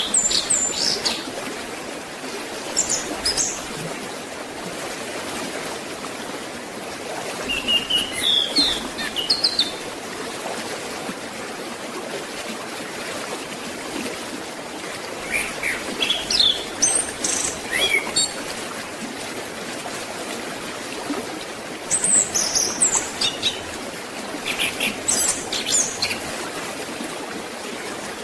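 A forest stream flowing steadily, with small birds chirping in short, quick bursts every few seconds over it.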